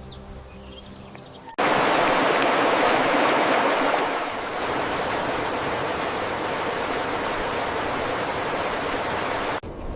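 A steady, even rushing noise, like running water, that starts abruptly about one and a half seconds in and cuts off suddenly just before the end. It is louder for its first couple of seconds.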